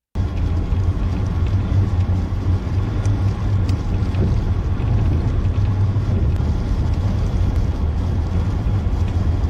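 Steady low rumble of a vehicle in motion, with a fainter hiss above it.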